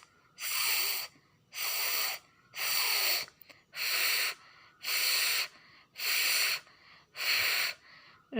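A woman repeating a voiceless hissing consonant sound as a phonics drill, eight times at about one a second, each held about half a second.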